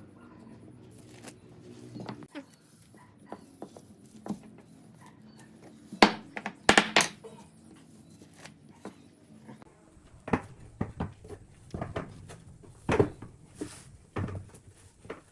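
Curved pine workpieces knocking and clattering against each other and the workbench as they are handled and stacked. Irregular sharp wooden knocks, a cluster of loud ones about six seconds in and more through the last five seconds.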